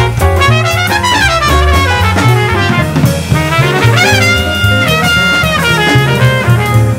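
Jazz background music with brass instruments playing melody lines over a bass and a drum kit.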